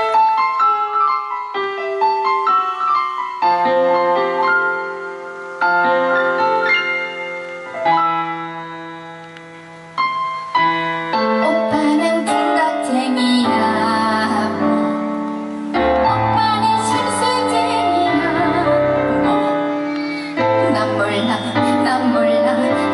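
Song intro: a piano plays an opening phrase alone for about ten seconds. A fuller accompaniment with bass and a wavering melody line then comes in.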